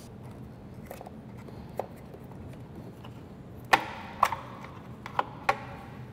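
A few scattered sharp clicks and knocks from tools and parts being handled, the loudest close together a little past the middle.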